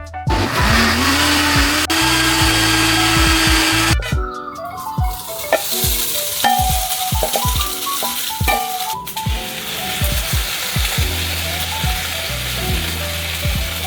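Cooking sounds over background music with a steady beat: a dense hiss like food sizzling in a pan. For the first four seconds a motor-like hum rises in pitch and then holds.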